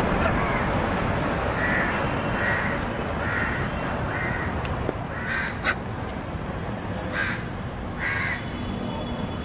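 A crow cawing in a steady series, a little more than one caw a second, over a steady background hiss. A single sharp click about halfway through.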